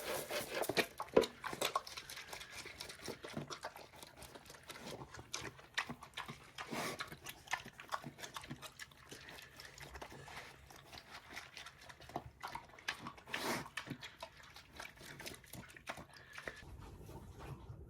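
Mini pig eating from a bowl of leftover noodles and feed: irregular wet chomping and slurping, with a few louder mouthfuls.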